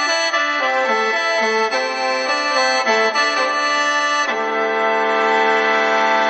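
Khaen, the Lao-Isan bamboo free-reed mouth organ, playing a quick melody over a drone, then settling into a sustained chord about four seconds in.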